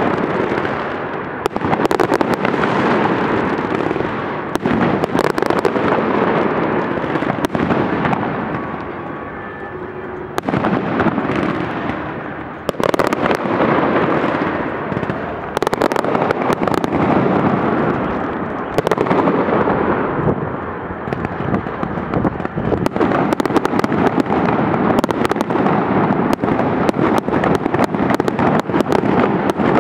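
Festive fireworks salute: a continuous barrage of bursting shells and crackle, with many sharp bangs standing out. The din eases briefly about nine seconds in and again around twelve seconds, then comes back at full strength.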